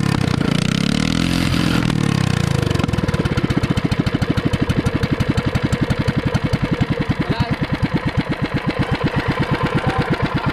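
Small boat engine running on test: it revs high for the first two or three seconds, then drops back to a slower, evenly pulsing idle.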